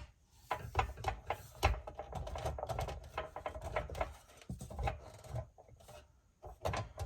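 Irregular light clicks and knocks of a replacement sheet-metal door pillar being handled and pushed into place against the body.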